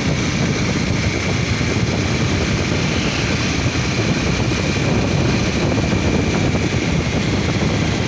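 Motorcycle riding at speed: heavy wind rushing over the microphone over the engine and road noise, steady and loud, with a faint steady high whine.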